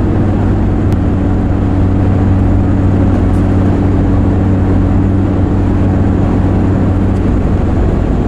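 Steady drive drone of a 1996 Chevy G30 van cruising, loaded with about 700–800 pounds of jet skis: a constant low engine hum under road and tyre noise, heard inside the van.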